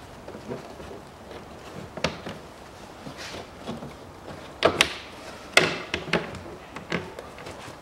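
Scattered knocks and clicks of a rubber air-intake duct and its clamp being handled and pushed back onto their connection on the engine, loudest about five seconds in.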